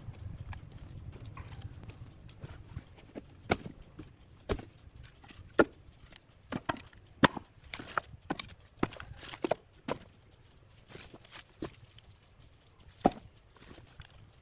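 Irregular sharp knocks and taps on wood, a dozen or so strong ones with lighter taps between, spaced unevenly and with no steady rhythm.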